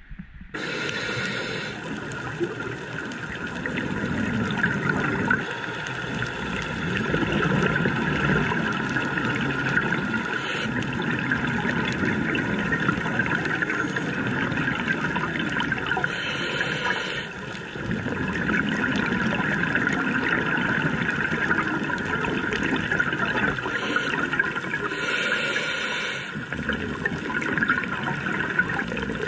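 Underwater bubbling and rushing water, steady and dense, with a few brief hissing surges of bubbles.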